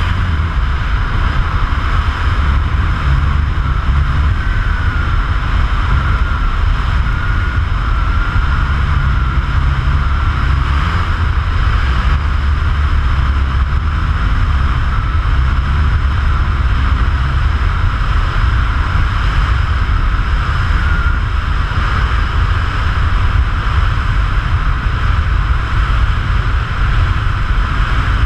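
Loud, steady wind rush buffeting a skydiver's camera microphone during the descent, heavy in the low rumble, with a faint wavering whistle above it.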